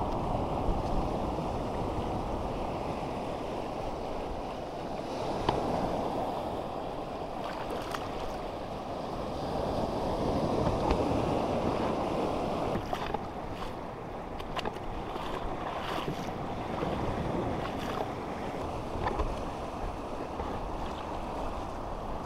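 Small waves washing over a shallow reef flat, swelling and easing, mixed with wind buffeting the microphone. A few light clicks and knocks in the second half.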